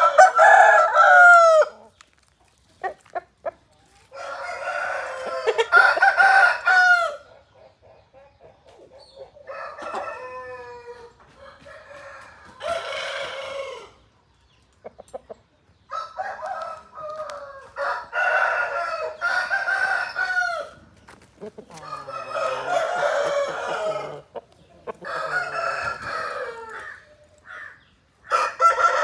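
Aseel roosters crowing again and again, each crow lasting two or three seconds, with short gaps between.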